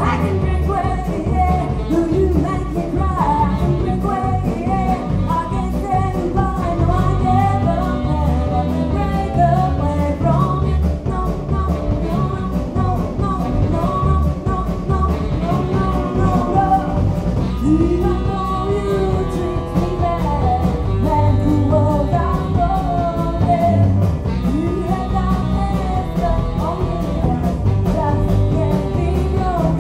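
Live rock and roll band playing: a woman singing over electric guitars, saxophone and a drum kit keeping a steady beat.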